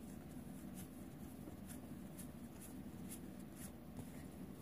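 Magic: The Gathering cards being flipped through by hand, each card sliding off the one behind it with a faint, light swish about twice a second, over a steady low hum.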